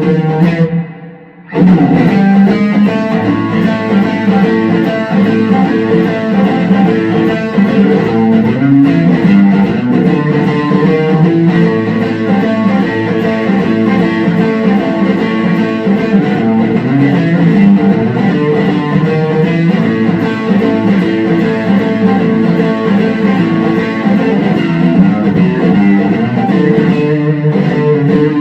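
Electric guitar, a Fender Player Series Stratocaster through a Fender Super Reverb amp, played continuously in chords and single-note lines. The playing breaks off briefly about a second in.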